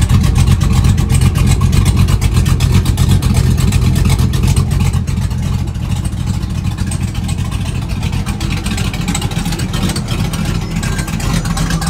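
A 550 hp LS3 V8 in a custom 1940 Ford pickup idling steadily, with a deep exhaust note heard close to the tailpipe.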